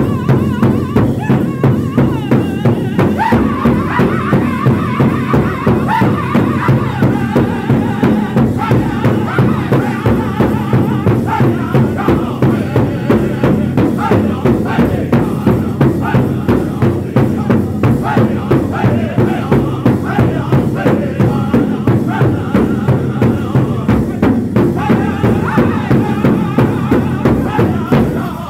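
A powwow drum group playing an intertribal song: several men strike one large shared hide drum in a steady, even beat while singing together. The beat stays regular throughout.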